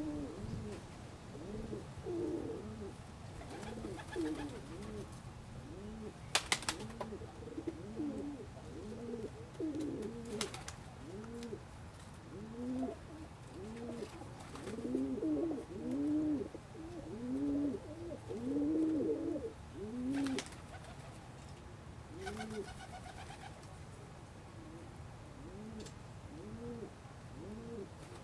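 Domestic pigeons cooing, several overlapping, the cooing fuller from about halfway through, with a few sharp clicks.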